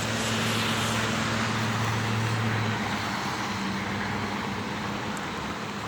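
Street traffic in the rain: a steady hiss of rain and wet road with a vehicle engine's low, steady hum that drops away about three seconds in.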